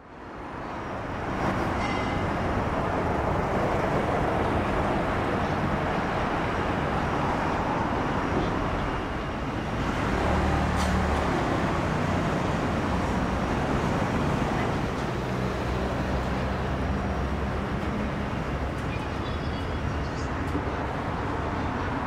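Outdoor city street noise: a steady wash of road traffic, fading in over the first second or so. A heavier vehicle engine hums through about ten seconds in and again from about fifteen seconds.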